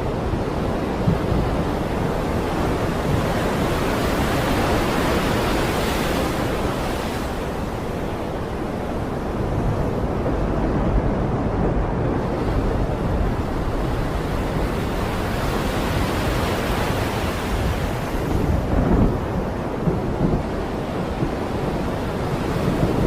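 Stormy sea: wind and crashing waves over a deep, continuous rumble, surging and easing every few seconds, with a few stronger gusts or breakers near the end.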